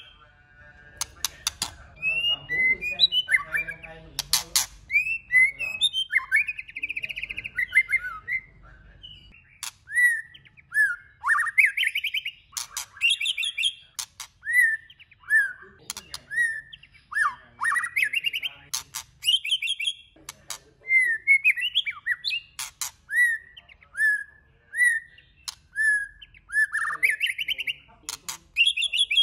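Male white-rumped shama singing a varied song of short whistled notes that slide up and down, one after another, mixed with sharp clicks.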